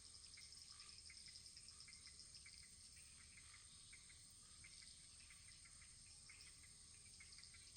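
Faint wood fire crackling: small irregular pops and ticks over a steady high hiss.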